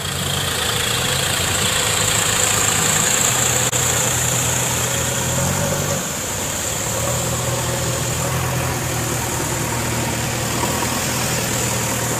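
Diesel engines of a farm tractor and a backhoe loader running steadily as they move through floodwater, under a constant hiss. The sound shifts slightly about halfway through.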